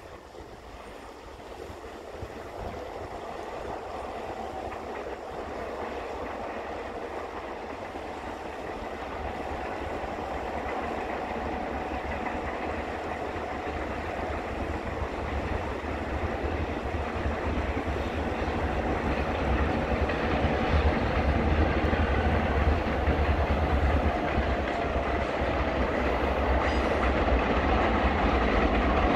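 An approaching train of EMD GP38 diesel locomotives and freight cars. There is a low engine rumble with rail and wheel noise, growing steadily louder as the train draws near.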